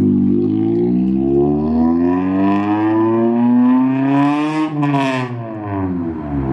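Acura Integra's freshly swapped four-cylinder engine accelerating, its pitch climbing steadily for about four and a half seconds, then dropping as the revs fall, with a short hiss at the drop.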